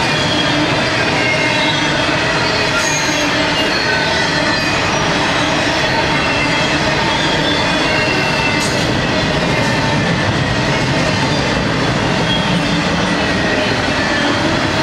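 Double-stack intermodal freight train passing close by at speed: a steady, loud rumble of steel wheels on rail, with short, high wheel squeals coming and going throughout.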